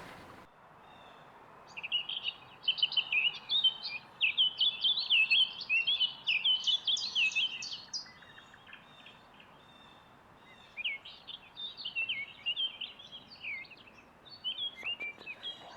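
Small birds chirping in quick, chattering runs of high notes: one long run of about six seconds, then two shorter runs later.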